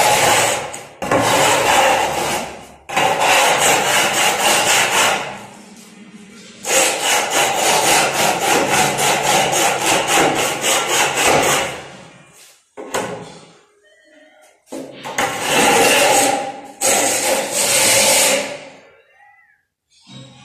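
Metal straightedge being dragged and worked back and forth across a wet sand-cement floor screed, scraping over the mortar in quick repeated strokes. It comes in several long passes with short breaks between them.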